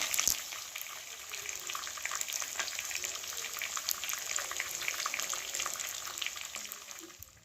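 Chicken back pieces frying in hot oil in a Dutch pot: a steady sizzle with many small crackling pops, fading out near the end.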